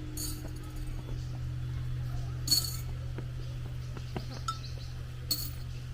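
Three short, bright clinks, the loudest about halfway through, over a steady low hum.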